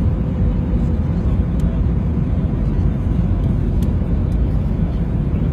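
Steady cabin noise inside a passenger airplane on its approach to landing: a deep, even rumble of engines and rushing air, with a faint steady hum under it.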